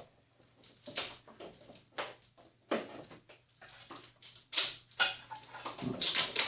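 Packaging being scraped and torn open with the plug of a power cord in place of a knife: a series of irregular scratchy rips and rustles, growing loudest near the end.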